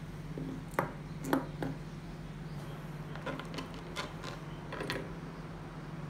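A steady low hum with a scattering of short light clicks and taps, roughly one a second, from handling close to the microphone.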